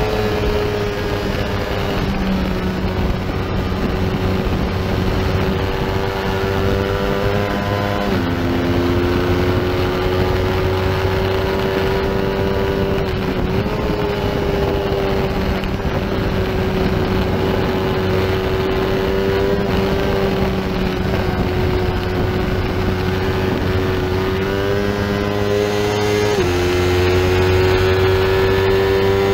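Lightweight racing motorcycle's engine heard from on board at high revs under hard throttle, with wind rushing past the bike. Its pitch drops sharply with an upshift about eight seconds in and again near the end, climbing again after each shift.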